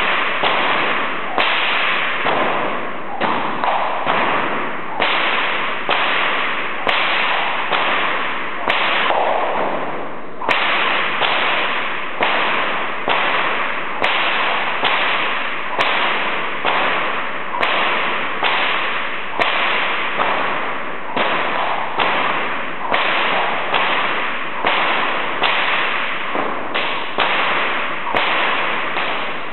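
A Murphy bullwhip cracked over and over in a Tasmanian cutback routine: sharp cracks about one a second, each trailing off before the next, keeping an even rhythm throughout.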